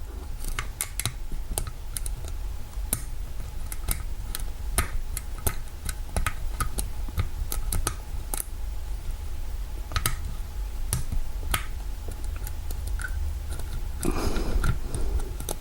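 Lock pick and tension wrench working in the keyway of an old, seized Kwikset door-knob cylinder: small, irregularly spaced metallic clicks, with a louder handling rustle near the end.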